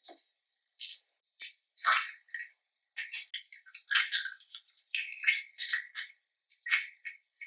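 Slime being squished and mixed by hand: irregular wet crackles, clicks and squelches, a burst every fraction of a second, with short gaps between.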